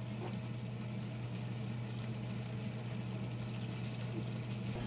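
A steady low mechanical hum, like a small motor or fan running, under a faint even hiss.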